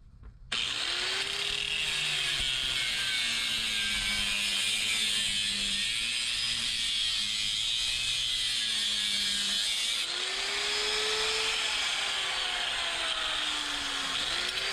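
Corded angle grinder with a thin cut-off disc starting up about half a second in and cutting through an exhaust pipe: a loud, steady whine and hiss of the disc in metal. The motor's pitch sags and recovers a few times as the disc is pressed into the cut and eased off.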